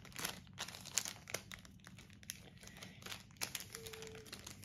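Foil booster-pack wrappers crinkling as they are handled, in quick irregular crackles.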